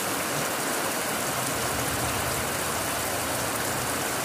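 Heavy rain falling steadily, with a low rumble underneath through the middle.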